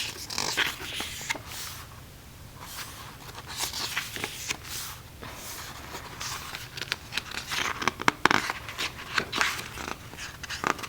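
Paper and plastic rustling and crinkling as K-pop album photocards and inserts are handled and shuffled, with scattered short slides and taps.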